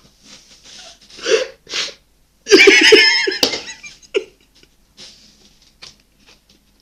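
People laughing after a round of a mouth-sound guessing game: breathy wheezing laughs, then a short loud burst of laughter about two and a half seconds in, trailing off into quiet breaths.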